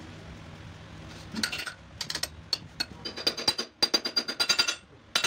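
Hammer striking a steel seal-installer plate to drive a crankshaft rear oil seal into the flywheel housing: sharp metal-on-metal blows that ring. After a steady low hum, the blows start about a second in and come as a rapid flurry through the second half.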